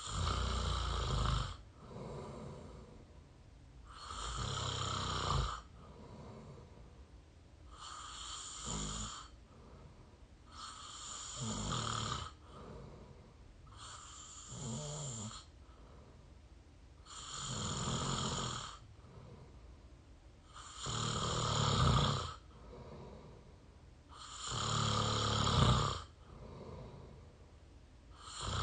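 A person snoring through the open mouth, close to the microphone. A loud rasping snore comes about every three and a half seconds, with fainter breaths between.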